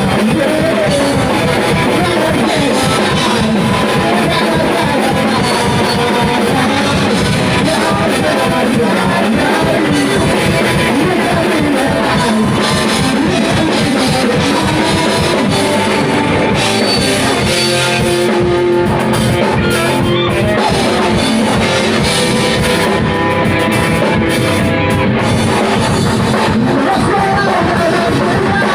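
Live rock band playing: electric guitar and drum kit with a voice singing.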